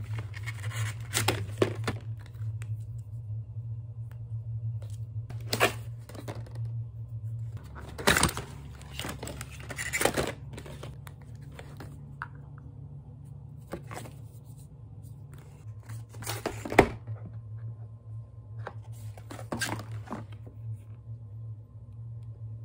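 Cardboard cosmetic boxes being opened and handled: paper tearing and rustling, with taps and clicks of plastic compact and palette cases, over a steady low hum. One sharp click about three-quarters of the way through is the loudest sound.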